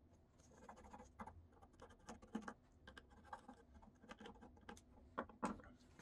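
Faint pencil scratching in short, irregular strokes as it traces around a SpeakON connector to mark a template on the speaker cabinet.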